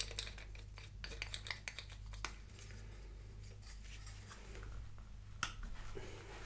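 Light clicks, taps and scrapes of hands working a steel threaded rod with its nut and washer, a wooden block and a 3D-printed plastic mold: a run of quick clicks in the first two seconds and a sharper click about five and a half seconds in.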